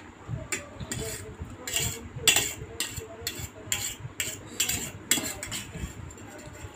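Metal spoon scraping and clinking against a stainless steel plate while scooping up noodles: a dozen or so quick, irregular scrapes from about half a second in to about five seconds, quieter near the end.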